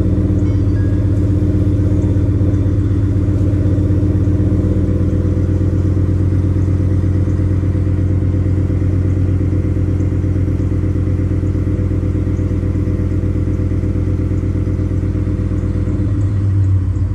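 Ford 5.0L Coyote V8 in a 2018 F-150 idling steadily through an X-pipe true dual exhaust, with a short swell in the low end near the end.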